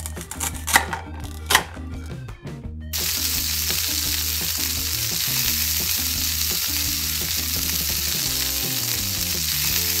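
A few sharp clicks as a plastic toy knife cuts a play-food chicken, then, about three seconds in, a steady frying sizzle starts and runs on while the toy wok is stirred. The sizzle is a sound effect laid over play food, not real cooking. Soft background music plays underneath.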